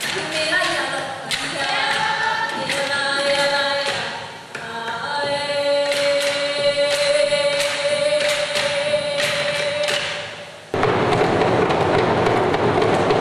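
Group chant singing with held notes, marked by regular drum or percussion beats. About ten and a half seconds in it cuts off abruptly to a loud, dense noise.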